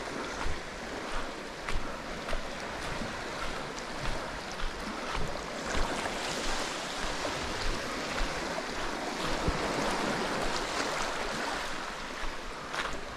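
Water rushing and splashing past a moving boat, with wind gusting and thumping on the microphone.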